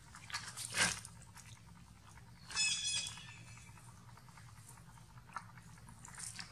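Long-tailed macaque chewing and crunching food, with a sharp crunch just under a second in. A brief high-pitched squeal sounds about two and a half seconds in.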